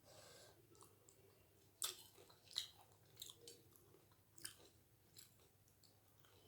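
Faint close-up chewing of doi fuchka, puri shells with yogurt filling: a few wet mouth clicks and smacks, the sharpest about two and two and a half seconds in.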